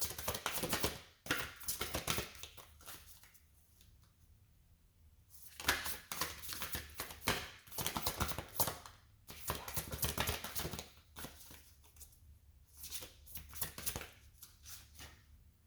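Tarot cards being shuffled and handled, a rapid riffle of card edges coming in three bursts with short pauses between.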